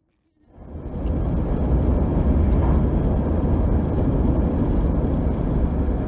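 Steady road and wind noise of a car driving at highway speed, a deep rumble with a hiss above it, fading in from silence within the first second.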